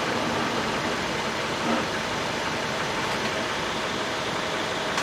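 A car's engine running steadily at low speed as the car is eased into a tight parking space.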